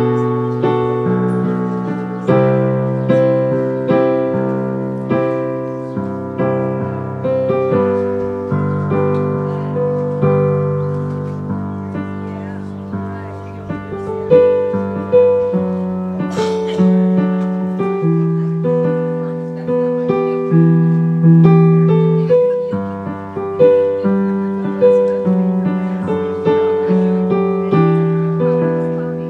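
Electric keyboard playing a slow piano piece, with struck chords under a melody, each note fading after it is played.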